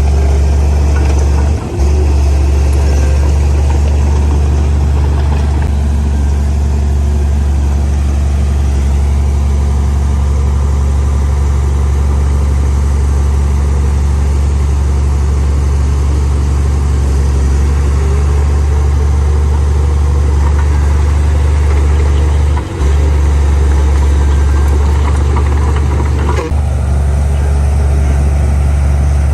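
Heavy diesel engine of a Komatsu D58P crawler bulldozer running steadily under work, a loud, constant low rumble. The sound dips for a moment about two seconds in and twice near the end.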